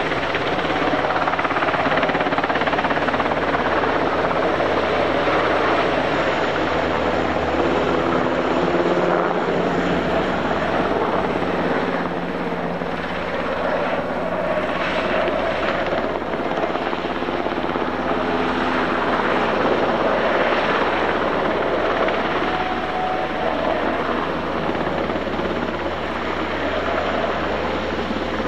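UH-60J rescue helicopter running steadily, its twin turboshaft engines and rotor making a loud, continuous noise.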